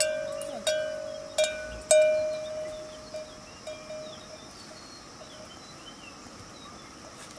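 A bell hanging from a grazing cow's neck clanks in irregular strikes as the animal moves. Several loud strikes come in the first two seconds, then fainter, sparser ones. Birds chirp faintly in the background.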